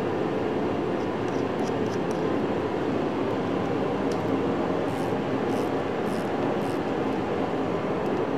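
A steady mechanical drone, with a few faint clicks from a ratchet wrench running down the connecting-rod nuts on a VW Type 1/3 crankshaft.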